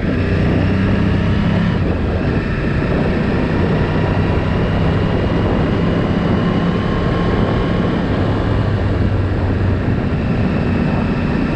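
Yamaha R1's 1000 cc inline-four engine running steadily under way, at an even pitch with only small changes, over a dense rush of wind and road noise. The engine is a new one being run in.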